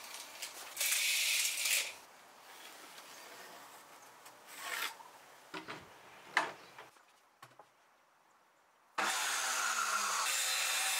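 Hands handling a pine board and tools: a loud scraping rub about a second in, then a few sharp clicks and knocks. About nine seconds in, a Powerplus circular saw starts abruptly and runs steadily, cutting through the pine board.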